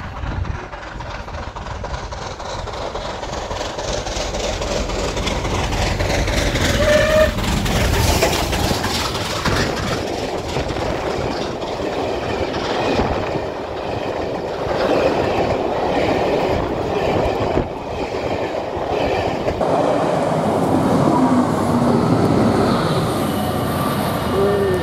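A railtour train of coaches running past a station platform: a steady rail rumble with clickety-clack of wheels over the rail joints, building to its loudest about eight seconds in and swelling again near the end.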